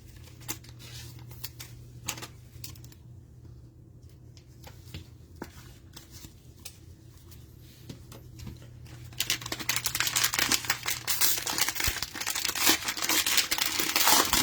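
Scattered light clicks of cards being handled, then from about nine seconds in, a dense burst of crinkling and tearing as the plastic wrapper of a Mosaic football cello pack is ripped open.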